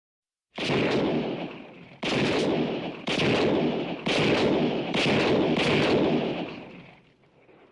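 Gunshot sound effect: a run of shots, spaced about a second apart at first and then closer together, each with a long echoing rumble, dying away near the end.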